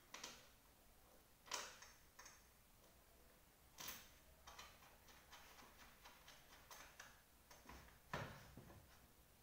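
Faint, scattered clicks and scuffs from hands handling an upturned office chair's seat mechanism and base, with a few louder scrapes and a quick run of small ticks in the middle.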